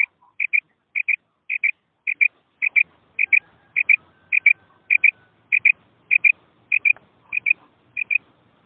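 Female quail calling: a short two-note call repeated steadily, a little under twice a second, the kind of call used to draw in males.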